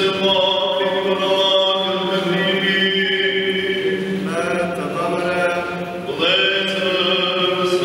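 Orthodox liturgical chant sung by men's voices in Byzantine style: long, held notes in a slow melody over a steady low drone, with sliding changes of pitch twice in the second half.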